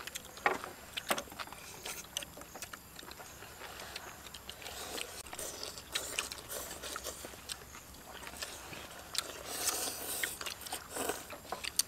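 Several people eating noodle soup: slurping noodles and chewing, with chopsticks and spoons clicking and scraping against porcelain bowls. There are many small scattered clicks and a louder stretch of slurping about nine seconds in.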